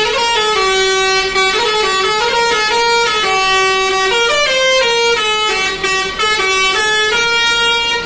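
A bus's telolet horn playing a tune: a run of loud held air-horn notes that step up and down in pitch, each lasting about half a second.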